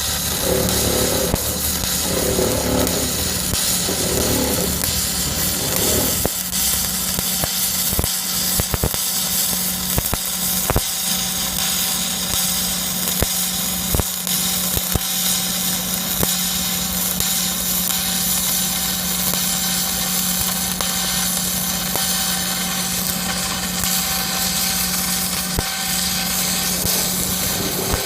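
Electric arc welding on a steel rail crossing with a Carbodur MnCr electrode: a steady crackling hiss from the arc with scattered sharp pops, over a steady hum from the welding machine.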